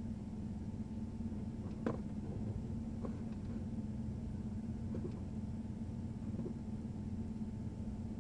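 Steady low hum of a vehicle idling, heard from inside its cabin while it sits stopped. There is one sharp click about two seconds in and a few faint ticks after it.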